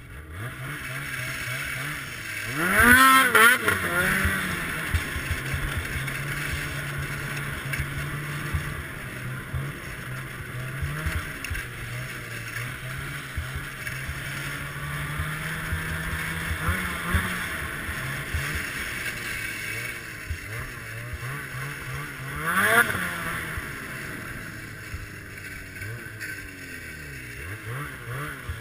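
Ski-Doo Summit X snowmobile's two-stroke engine running under way on snow, holding a steady note. The throttle is blipped hard about three seconds in, the loudest moment, and the engine revs up and back down again shortly before the end.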